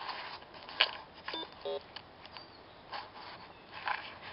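Two short electronic beeps from a metal detector about one and a half seconds in, among repeated scratching and scraping of soil being dug through by hand.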